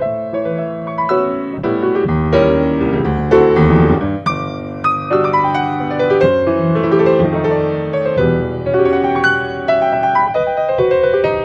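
Solo grand piano playing a tango, with a dense run of quickly struck notes over ringing chords and deeper bass notes between about two and four seconds in.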